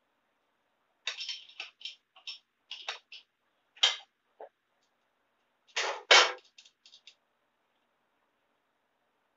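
Hand tools and bolts clinking against the tractor's metal engine parts during clutch removal: irregular sharp metallic clicks and clinks, the loudest pair about six seconds in.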